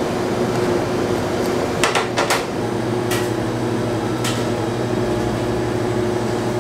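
Steady hum of bakery machinery or ventilation, with a few short knocks and clicks about two seconds in, again near three seconds and once more past four seconds.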